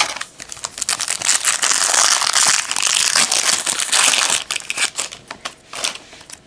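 Foil trading-card pack wrapper crinkling as it is torn open, dense for about four seconds, then a few light clicks near the end.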